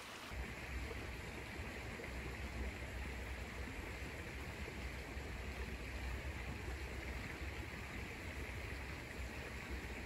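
Shallow creek water running over stones, a steady rush that begins abruptly a moment in, with a strong low rumble underneath.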